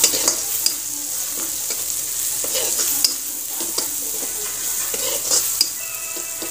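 Onion-tomato masala frying and sizzling in a metal kadhai while a flat metal spatula stirs it, with irregular scrapes and taps of the spatula against the pan.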